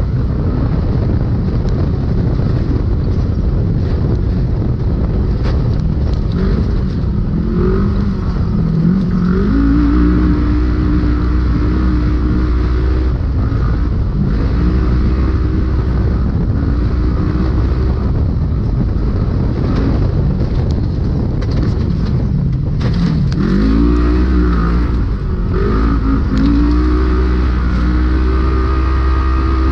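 Polaris RZR UTV engine heard from inside the cab at racing speed, its pitch climbing and dropping again and again as the throttle is worked, over a constant loud rumble from the drivetrain and chassis. A few sharp knocks cut in late on as the car hits rough ground.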